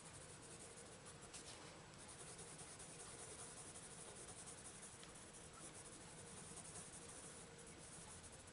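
Faint scratching of a coloured pencil shading on a book page.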